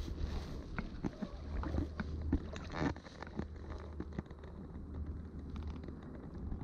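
Steady low wind rumble on the microphone, with scattered small clicks and a short rattle about three seconds in from a fishing rod and single-action reel handled while a fish pulls on the line.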